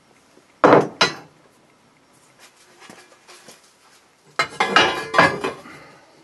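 Workshop handling noise: two sharp metal clanks about half a second in, then a cluster of clattering knocks and rattles near the end as a wooden board is set against a steel bench vise and the hydraulic ram setup.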